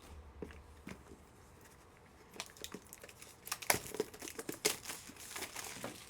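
Plastic packaging crinkling and rustling as it is handled and pulled open, with many short sharp crackles that get busier about halfway through.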